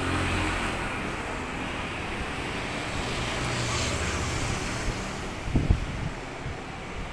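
Background traffic noise on a city street, a steady low rumble with a wash that swells and fades twice. A few low thumps come about five and a half seconds in.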